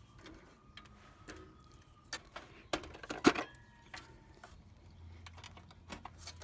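Scattered plastic clicks and rattles of power-supply cable connectors being unplugged inside a desktop computer case, the loudest snap a little past three seconds in.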